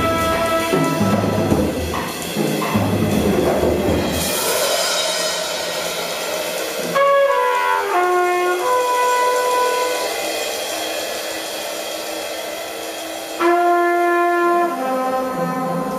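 Free-improvised jazz for trumpet and two drum kits. The drums play busily under a held trumpet tone, then drop to a bright cymbal wash after about four seconds. The trumpet goes on alone over light percussion with short falling runs and held notes, and a loud sustained note comes in near the end.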